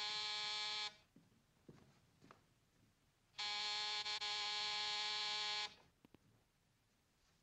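Electric door buzzer pressed insistently: one buzz cuts off about a second in, and a second, longer buzz of about two seconds starts around three and a half seconds in. A few faint knocks and clicks fall between and after the buzzes.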